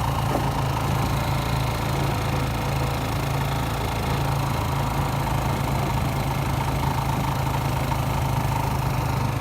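An engine running steadily at an even speed, with a strong constant low hum.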